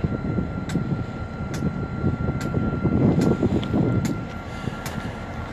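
Wind rumbling on the microphone while footsteps crunch on rail-yard ballast, about one step a second, over a faint steady high whine.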